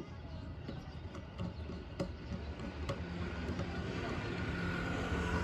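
Scattered small clicks and taps of headlight parts being handled and fitted together, with a low hum growing louder near the end.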